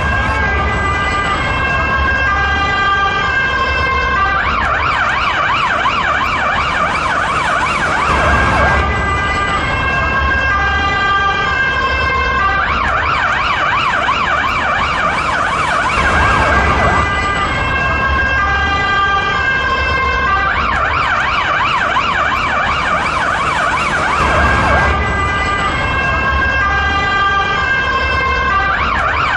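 Finnish police car siren sounding continuously. It switches about every four seconds between a two-tone hi-lo pattern and a fast warbling yelp.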